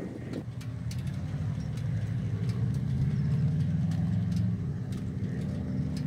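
Stock exhaust of a 2020 Harley-Davidson Sportster 1200 Custom's air-cooled V-twin, the engine running at a steady idle. It gets a little louder around the middle, then eases back.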